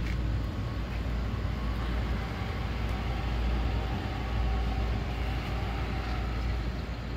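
Steady low rumble of parking-lot traffic and vehicle noise, with no distinct events.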